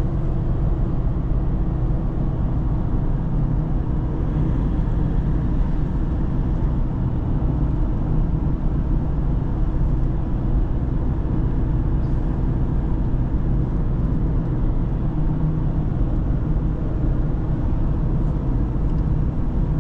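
Steady low engine and road rumble inside a vehicle's cabin while driving along at a constant speed.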